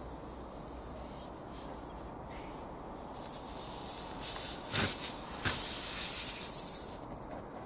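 Air hissing out of a punctured car tyre as the rasp tool is worked and pulled from the puncture, with two short sharp sounds as it comes out. The hiss is loudest for about a second and a half after the tool is out, then fades.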